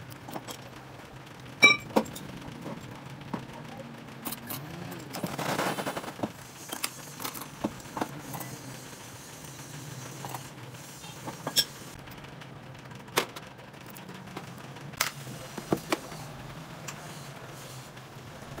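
Scattered sharp clicks and light metallic taps of steel tweezers against small gold earring pieces and the metal bowl of pitch holding them, over a steady low hum.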